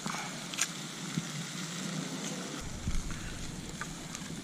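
Campfire crackling: a steady hiss with scattered sharp pops, and a dull bump about three seconds in.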